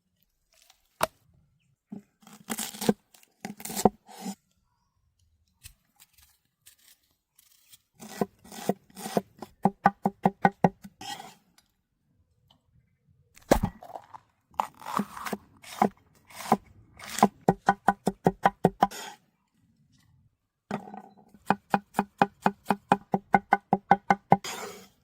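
Knife chopping food on a cutting board in fast, even runs of about five strokes a second, each stroke with a short woody knock, in several bursts separated by pauses.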